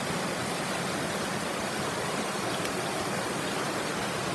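Upstream mountain river flowing, a steady even rush of water with no breaks.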